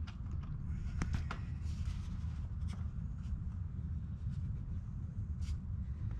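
Small clicks and scratching from hands working on a foam Dynam Cessna 188 RC airplane during a repair, with a few sharp clicks close together about a second in, over a steady low rumble.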